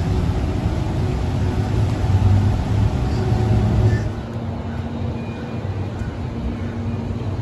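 Low outdoor rumble with a faint steady hum. About four seconds in it cuts to a quieter scene carrying a steady hum.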